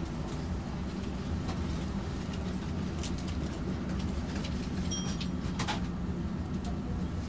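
Helsinki tram running along its track, heard from inside: a steady low rumble with a few short rattles and clicks, and a brief high tone about five seconds in.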